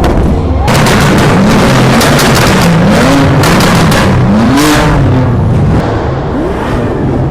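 Loud vehicle exhausts revving in repeated blips, the engine pitch rising and falling several times over a dense wash of engine noise.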